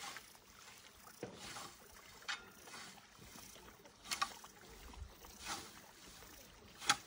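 Hand scythe swishing through tall grass in repeated mowing strokes, about six in all, roughly one every second or so, the loudest near the end.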